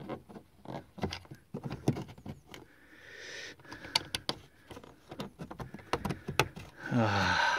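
Irregular clicks and knocks of plastic bumper trim and a push-in plastic clip being worked into place by hand around a car's fog light, with a short rustle about three seconds in. Near the end a man's voice gives a loud drawn-out sound falling in pitch.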